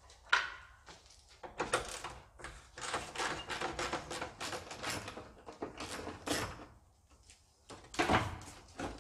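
Clicks, knocks and rattles of a hand tool and a car headlight unit being worked loose from the front end, with a sharp knock just after the start and a dense run of clicks in the middle.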